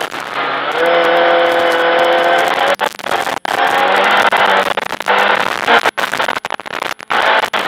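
Ford Fiesta R2 rally car's 1.6-litre four-cylinder engine running hard at high revs, heard inside the stripped cabin, with the note dipping and climbing again a few times as the car drives along a snow-covered road.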